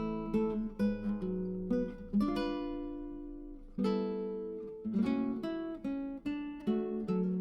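Background music of acoustic guitar, plucked and strummed chords that ring out, with one chord left to sustain and fade for about two seconds in the middle.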